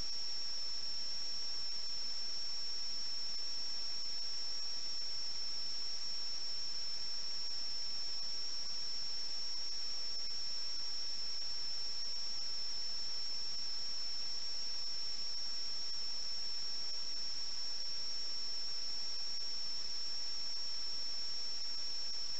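Steady high-pitched whine over an even hiss, unchanging throughout: static from the empty audio channel of an analog FPV video link.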